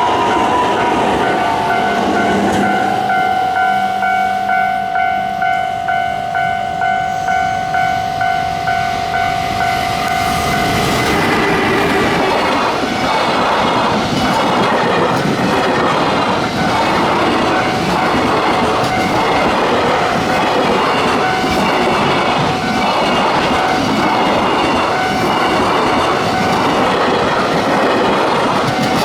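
A freight train hauled by an EF210 electric locomotive passes close by, its wagons clattering over the rail joints in a steady, regular clickety-clack for the last two-thirds. Before the train reaches the spot, a steady high ringing tone pulses about twice a second.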